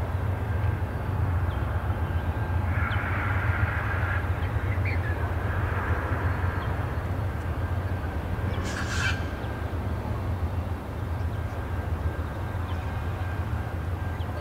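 EL-class diesel locomotives EL56 and EL60 approaching slowly at the head of a rail train, their engines running with a steady low rumble. A brief, sharper sound comes about nine seconds in.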